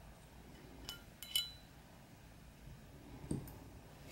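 Light metallic clicks and clinks of a Glock 21's striker assembly being slid out of the steel slide: three quick clicks about a second in, the last the loudest with a short ring. A soft knock from handling the slide follows a little after three seconds.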